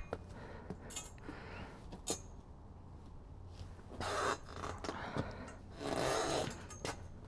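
Metal electrical conduit scraping and rubbing as it is worked with a hand conduit bender. A few light clicks come first, then two longer scrapes, about four and six seconds in.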